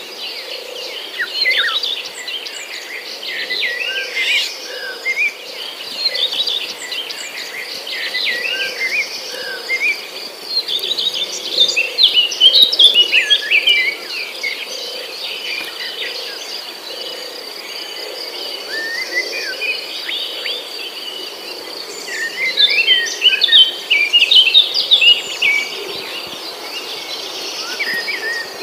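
Small birds chirping and twittering in quick runs of short calls over a steady, high insect trill. The chirping is busiest about a third of the way in and again near the end.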